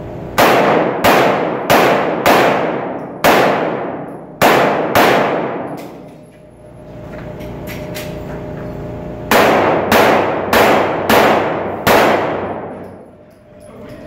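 Pistol shots fired in an indoor concrete range, each ringing out in a long echo. They come in two strings, about seven shots, a pause of about four seconds, then about six more.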